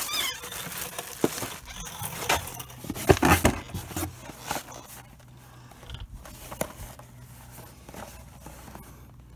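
Cardboard parts boxes being handled and shifted: scattered knocks and rustles, loudest about three seconds in, then only faint handling noise.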